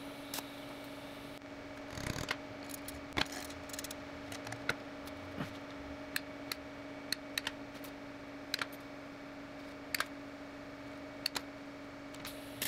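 Cutting nippers snipping through strands of expanded steel mesh: about a dozen short, sharp clicks at irregular intervals, with the small cut pieces clinking on the steel table, over a steady low hum.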